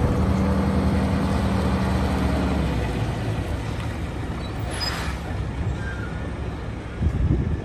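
Diesel engine of a Renault 320dCi 6x4 dump truck driving slowly, its steady engine note easing off after about three seconds as the truck slows. A short hiss of air from the air brakes comes about five seconds in.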